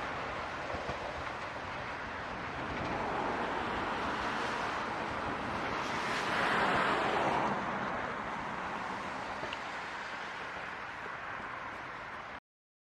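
Steam-hauled train of the Moka Railway running past on the rails, a steady rushing rumble with wind on the microphone. It swells about six seconds in, then cuts off abruptly near the end.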